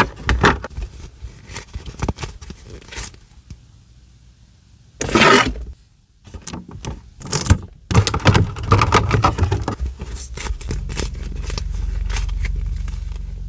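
Foam squishy toys being handled and squeezed for ASMR: scraping, rustling and tapping, with louder rustles about five and seven seconds in and a low rumble from about ten seconds on.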